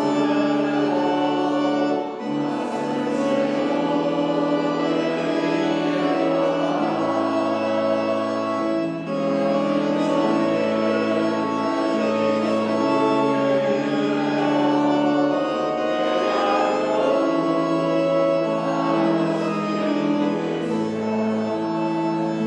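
Organ playing a hymn in long held chords, with a congregation singing along.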